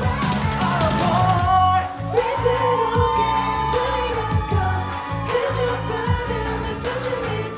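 K-pop boy group song: male vocals singing over a funky band track with bass, guitar and a steady drum beat.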